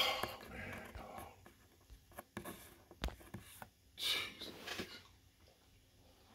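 Quiet close-up handling and movement noises: soft rustling and breathy sounds, with a sharp click about three seconds in.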